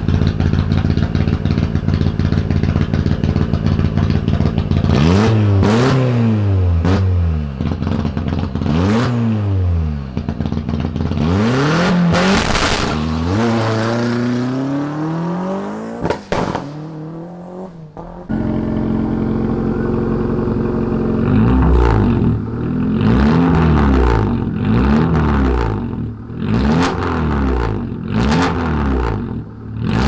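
Small hatchback rally car engines revved at a stage start. The first engine holds steady for a few seconds, then is revved up and down in repeated blips, and its sound falls away near the middle. A second engine then runs steadily and is blipped up and down again and again.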